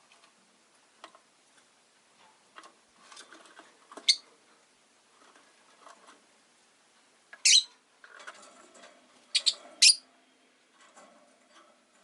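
Rosy-faced lovebirds chirping: a few short, shrill calls, the loudest about four seconds in, one near the middle and two close together near the end, over soft clicks and quieter chatter.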